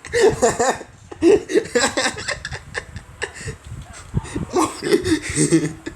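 Voices laughing in short, repeated bursts, with pitch sliding up and down.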